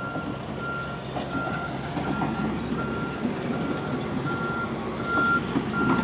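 Large excavator's diesel engine running under load as it tracks along, its travel alarm beeping steadily at about one beep every three quarters of a second, with metal clanks from the machine.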